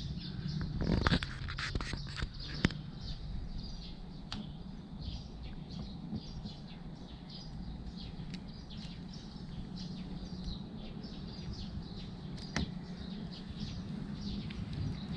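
Small birds chirping over and over, over a steady low hum. A short scuffing noise comes about a second in, with a sharp click soon after.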